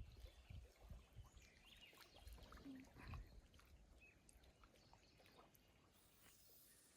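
Near silence: faint outdoor ambience with scattered soft rustles, ticks and low knocks of handling.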